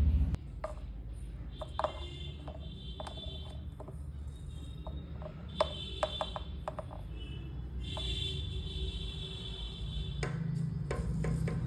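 Curtain rings and a curtain rod being worked: scattered metallic clicks and short squeaks over a low steady hum. The squeak is from hardware that needs oil.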